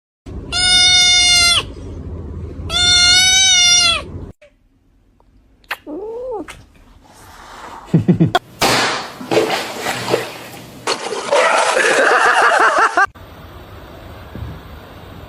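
A cat meowing loudly twice, each a long drawn-out meow, then a shorter, softer meow that rises and falls. This is followed by several seconds of loud noisy scuffling sound with some cat cries in it, and after an abrupt cut only a faint steady hiss.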